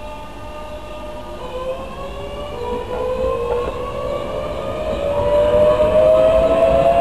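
Electric commuter train's traction motors whining with a steadily rising pitch as it accelerates, growing louder over the rumble of the train.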